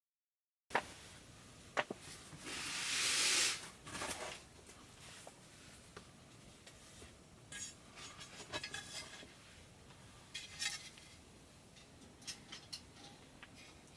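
Light clinks, taps and scrapes of utensils against dishes and cookware, with a brief rush of hiss about two seconds in.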